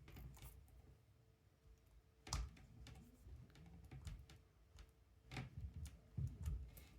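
Faint, scattered clicks and small taps of a resin watch strap and its spring bars being worked onto a G-Shock case, a few sharper clicks standing out.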